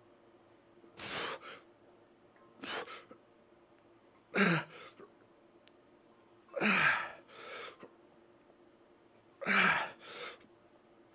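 A man's forceful breaths as he pushes through reps of EZ-bar skull crushers, five strong exhales about two to three seconds apart, the last three with a low grunt in them. Most are followed by a shorter, fainter breath.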